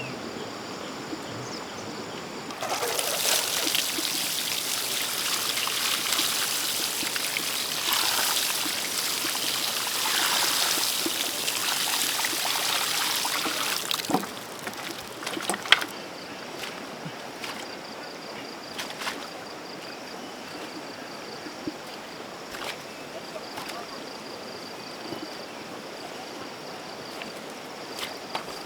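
Water pouring and splashing for about eleven seconds, then stopping. After it come scattered sharp clicks and knocks over a faint steady high tone.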